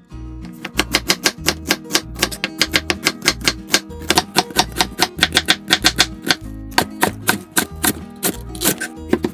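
Chef's knife slicing through onion and then green onion on a wooden cutting board, quick, steady chops against the board. Background music with acoustic guitar runs underneath.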